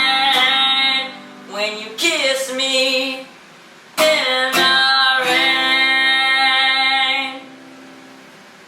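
Acoustic guitar strumming closing chords, each chord ringing on; the last chord dies away about seven seconds in.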